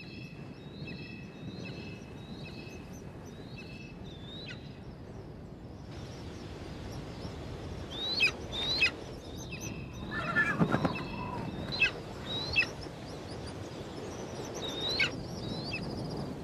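Juvenile black (Verreaux's) eagle calling: a run of about seven short, evenly spaced calls in the first few seconds, then single sharp calls that rise and fall, one every second or two. This is the begging of a hungry young eagle waiting to be fed.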